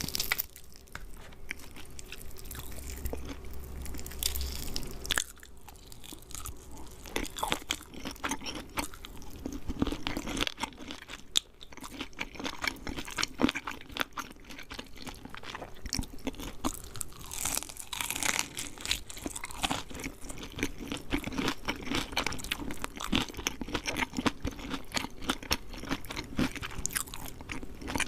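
Close-up crunching and chewing of KFC fried chicken: the crispy coating cracks under bites, followed by steady mouth chewing, with irregular crunches throughout.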